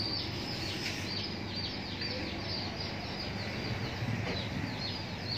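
Many small birds peeping continuously: short, high, falling peeps, several a second, over a low steady hum.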